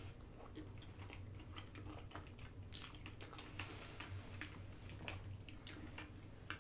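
A person chewing food close to the microphone: a run of soft, irregular wet mouth clicks and smacks, over a steady low hum.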